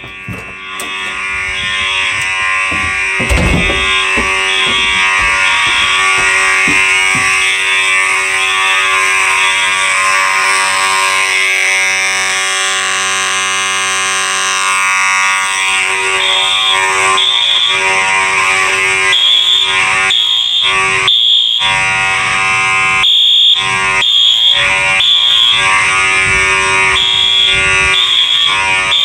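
Two fire alarm horn strobes sounding together, very loud: a Harrington Faraday 6226HS horn strobe with a harsh, angry buzz, and a Harrington-rebranded Wheelock AS horn strobe with an ear-piercing pulsing tone. The sound breaks off briefly several times near the end.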